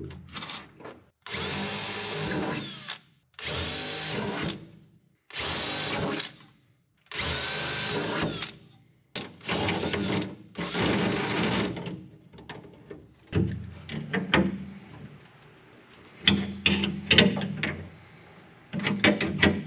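Cordless drill boring holes through a riveted sheet-metal aircraft panel in about six short runs, each one to two seconds long. After these come scattered metal clicks and clinks of a wrench tightening a nut on a fitting mounted through the panel.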